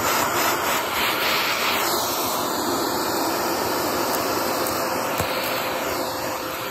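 Vacuum cleaner running steadily, its crevice nozzle drawn over a carpet, with the hiss of the intake air shifting as the nozzle moves. A single sharp tick comes about five seconds in.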